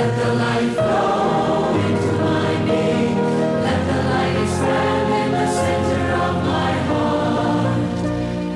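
A choir singing a devotional song with musical accompaniment, holding long notes over changing chords.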